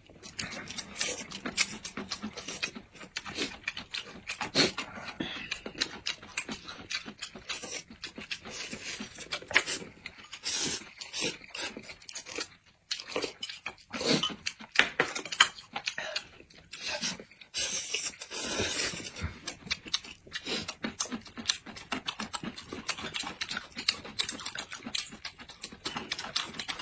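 Close-miked eating sounds: people slurping noodles and chewing, with wet smacking clicks and breathy sucking in quick irregular runs.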